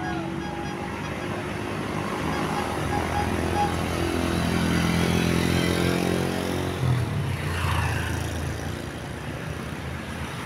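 A road vehicle's engine running, with traffic noise; it gets louder and a little higher in pitch around the middle, as if the vehicle passes close by.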